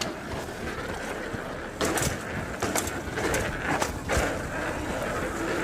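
Gios FRX III freeride mountain bike ridden fast down a dirt trail: a steady rush of tyre and air noise, with a string of sharp knocks and rattles from bumps over the second half.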